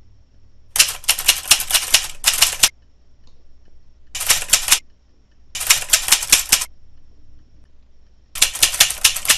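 Typewriter keys clattering in four rapid bursts with short pauses between them; the first and last bursts are the longest.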